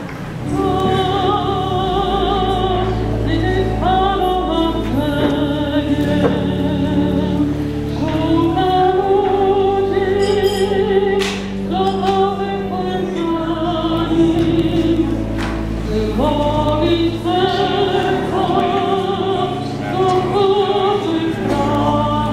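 Several voices singing a hymn with wavering held notes, over steady low accompaniment notes that change every couple of seconds.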